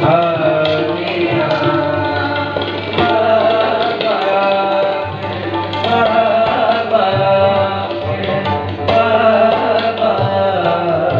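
Sikh kirtan: tabla playing a steady rhythm under two harmoniums, with a voice singing the shabad over them.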